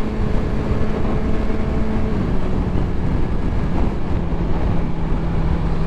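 Sportbike engine running at cruising speed under heavy wind and road noise. Its note steps down twice, about two seconds in and again near five seconds, as it eases off or shifts up.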